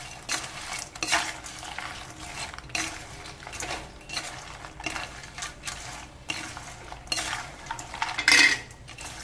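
A perforated steel ladle scrapes and stirs fried maida pieces through sticky sugar syrup in a stainless-steel kadai, in repeated strokes about once a second. The loudest scrape comes near the end. This is the stage where the fried snack is coated in syrup to make sweet kalakala.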